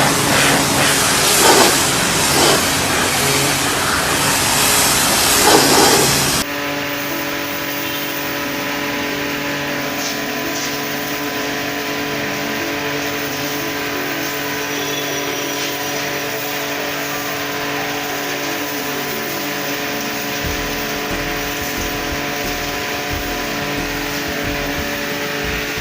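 Total 2500 W electric pressure washer spraying water: a loud, steady hissing rush that cuts off abruptly about six seconds in. A quieter, steady hum with several held tones follows.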